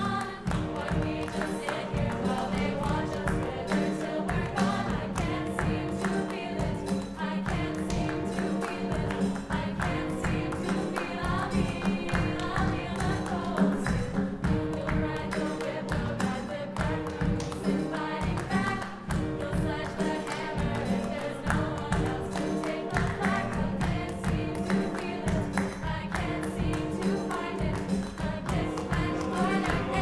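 Mixed choir singing an upbeat pop song, with hand claps and drums keeping a steady beat.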